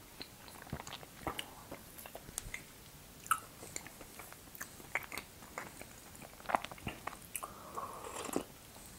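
Close-miked eating of a crepe cake with custard: soft chewing with many small wet mouth clicks and smacks, then a sip of tea from a mug about eight seconds in.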